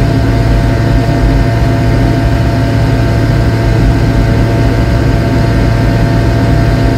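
Piaggio Ape 50's small two-stroke single-cylinder engine running steadily at cruising speed, heard loud from inside the cab as a constant low drone with road noise.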